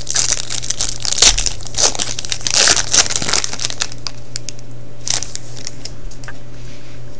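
A trading-card pack wrapper is torn open and crinkled by hand as the cards are pulled out. The crinkling is busiest in the first three and a half seconds, with one more short rustle about five seconds in, over a steady low hum.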